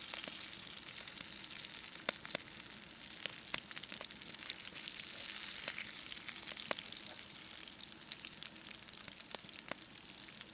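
Hot oil sizzling steadily in a frying pan, with scattered sharp pops and crackles.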